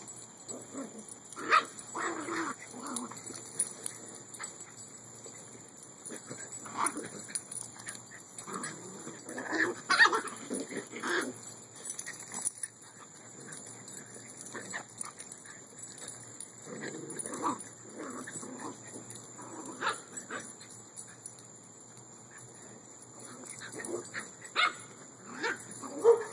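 A dog and puppies yipping and barking in rough play, in short scattered bursts. The loudest clusters come about ten seconds in and again near the end.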